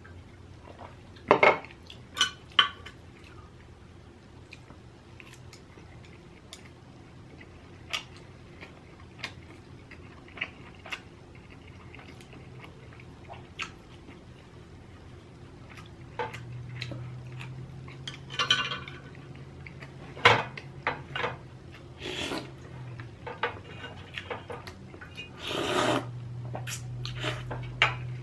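Eating utensils clicking and tapping against dishes in scattered, irregular knocks, with a few longer scraping or slurping noises in between.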